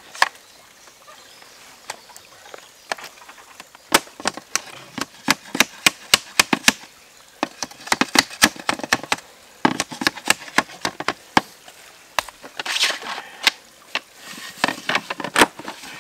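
Quick series of sharp plastic clicks and knocks, several a second, as black polyethylene water pipe is forced and twisted into a plastic compression coupler. A short scraping rustle comes about two thirds of the way through.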